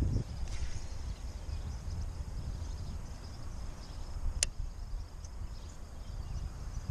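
Wind buffeting the camera microphone, a steady low rumble, with one sharp click about four and a half seconds in.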